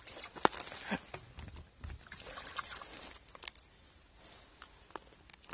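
A small hooked bass splashing and thrashing at the surface of shallow water as it is reeled in, with scattered sharp splashes and clicks.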